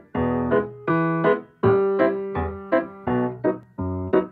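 Background piano music: notes and chords struck about two to three times a second, each fading before the next.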